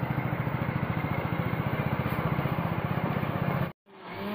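Motorbike engine running steadily at low speed with a fast, even putter, cutting off abruptly near the end.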